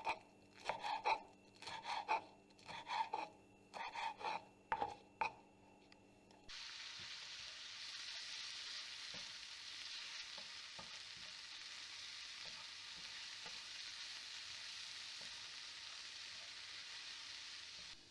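A utensil stirring in a pot in short repeated strokes. About six seconds in, the sound cuts to a steady sizzle of food frying in a pan.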